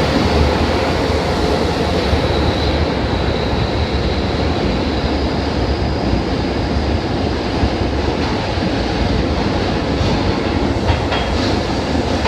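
Keisei electric train running through the underground tunnel, a steady loud rumble with a faint high whine above it. A few sharp clicks sound near the end.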